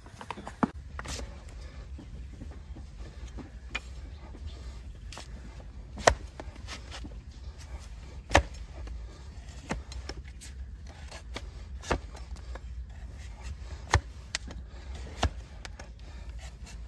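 A hoof knife paring a donkey's overgrown hoof against a wooden block. Sharp cracks come irregularly, a second or two apart, as the blade cuts through the horn.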